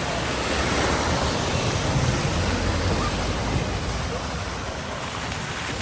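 A vehicle pushing through deep floodwater at a ford: a steady wash of splashing and surging water, with a low rumble that swells about a second in and eases off after about three and a half seconds.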